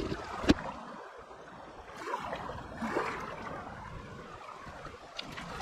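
Small waves lapping and washing over the pebbles and stones of a rocky lake shore, swelling and ebbing. A single sharp knock about half a second in.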